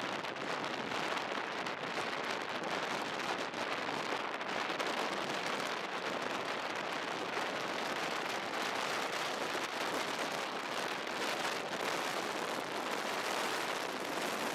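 Heavy rain hitting the vehicle: a steady, dense hiss of many small impacts.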